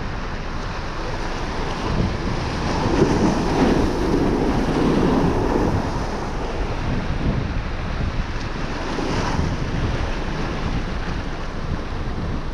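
Strong wind buffeting the microphone over sea surf washing against a pier. A louder rush swells about three seconds in and eases a few seconds later.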